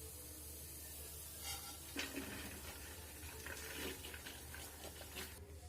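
Faint, scattered light knocks and scrapes of a spoon against a pan as cooked moong dal stuffing is moved onto a plate.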